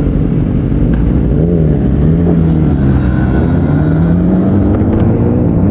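Royal Alloy GP180 scooter engine running under way, its pitch dipping about two seconds in and then rising steadily toward the end as it speeds up, with a low rushing of wind across the microphone.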